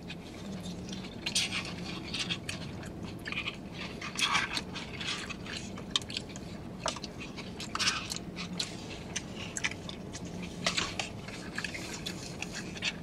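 Two people eating soft scrambled-egg breakfast bowls: irregular wet chewing and lip smacks, with short clicks and scrapes of spoons in paper cups, over a faint steady low hum.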